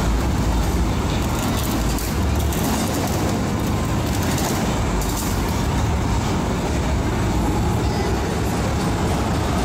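Megasaurus car-eating robot's heavy engine running with a steady low rumble as its jaws work on a car.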